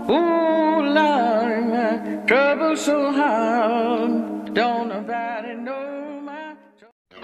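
Music: a solo voice sings a wavering melody over a steady low drone, with new phrases about every two seconds, and fades away near the end.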